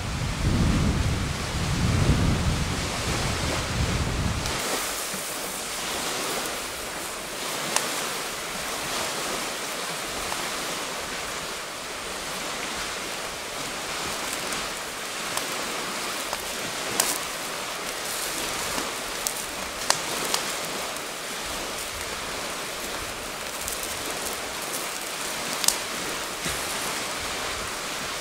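Wind buffeting the microphone with a low rumble for the first few seconds. Then a wood campfire burning with a steady hiss and a handful of sharp crackling pops from the burning wood.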